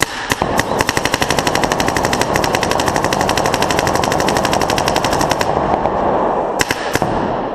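A paintball marker firing a rapid, continuous string of reballs (reusable rubber paintballs) for about five seconds, then two more shots near the end, over a steady noise. The unbroken rate of fire shows the freshly lubed reballs feeding without jamming.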